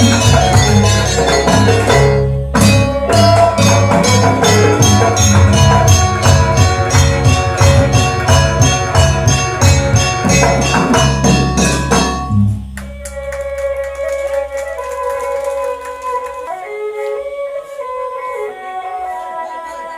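Traditional Banyuwangi music for dance, loud with heavy bass and a fast, steady percussive beat. About two-thirds of the way in the bass and beat drop out, leaving a quieter melody of held notes.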